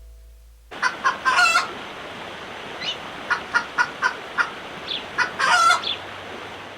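Chickens clucking: a run of short, sharp clucks with two longer, louder calls, one about a second in and one near the end.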